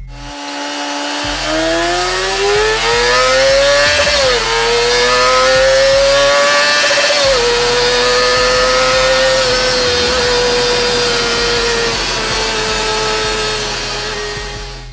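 Honda CBR250 four-cylinder engine revving very high on a chassis dyno. The pitch climbs steadily, dips sharply about four seconds in as it shifts up, and climbs again. A little past seven seconds it dips once more, then holds high and sags slowly toward the end.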